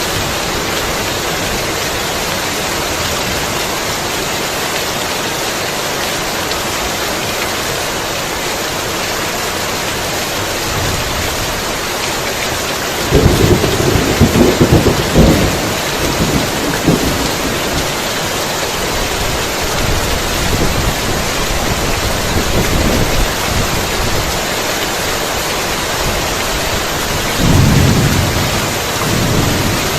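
Heavy rain falling steadily. A loud thunderclap about halfway through crackles and rumbles for a few seconds, and a second rumble of thunder comes near the end.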